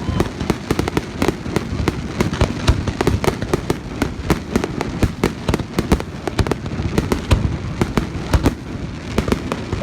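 Aerial fireworks going off in a dense, continuous barrage: many sharp bangs and crackling pops every second, with no break.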